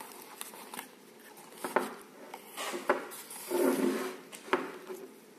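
Stepper motors being taken out of a cardboard box and handled: cardboard rustling, with a few sharp knocks as the metal motor bodies knock against each other and the desk.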